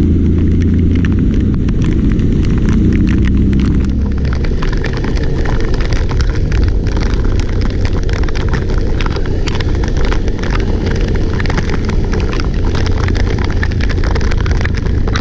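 Heavy wind buffeting the microphone over a vehicle engine running steadily, its low hum plain for the first four seconds and then buried in the rumble.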